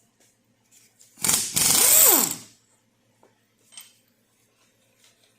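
A power tool run in one burst of about a second and a half, its motor whine rising in pitch and then falling as the trigger is let go, over a loud hiss.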